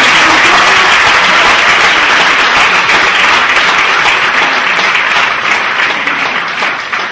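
Theatre audience applauding, a dense steady clapping that begins to die away in the second half.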